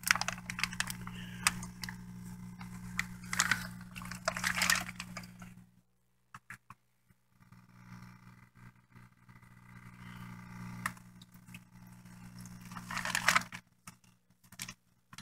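Water splashing and pouring as a plastic bag of tilapia fingerlings is emptied into a plastic bucket, over a steady low hum. After a short break there is a quieter steady hum and one more brief splash near the end.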